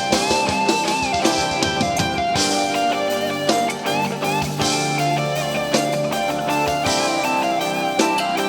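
Worship band music with no words: guitars over a drum kit keeping a steady beat, with a sustained melody line gliding above.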